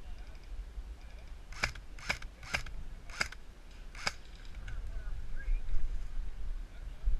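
Airsoft rifle firing five single shots, sharp clicking snaps spaced unevenly over about two and a half seconds, starting about a second and a half in.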